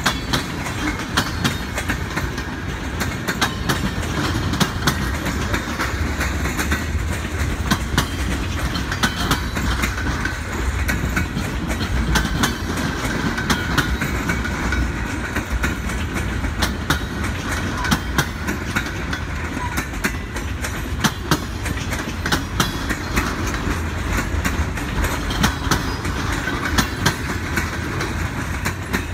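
Steel wheels of empty military flatcars clacking over bolted rail joints as the freight train rolls past, a running series of sharp clicks over a steady low rumble.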